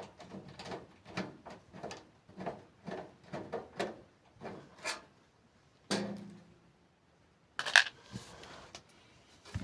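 Quick light clicks and knocks of hard parts being handled during the teardown of an old PC, then a dull thump about six seconds in and one sharp loud click near the end.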